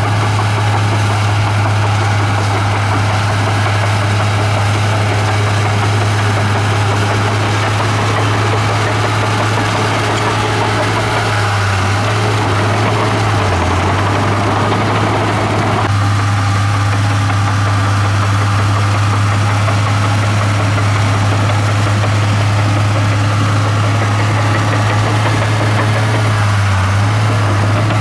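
Komatsu bulldozer's diesel engine running steadily with a strong low drone; its tone changes about halfway through.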